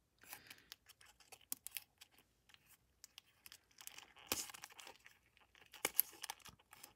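Adhesive tape being peeled and picked off a laptop battery's circuit board by hand: faint, irregular crackling and ticking, busiest about four seconds in and again near six seconds.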